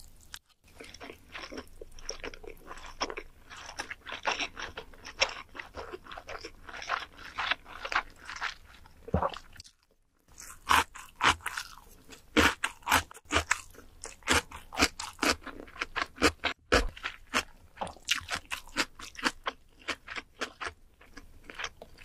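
A person chewing food in a quick run of sharp mouth clicks. The chewing breaks off briefly about ten seconds in, then starts again louder.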